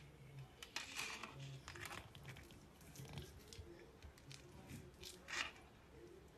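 Faint clicks and soft scrapes of handling, then a fork scraping a plate as it cuts into a piece of syrup-soaked semolina cake, loudest a little over five seconds in.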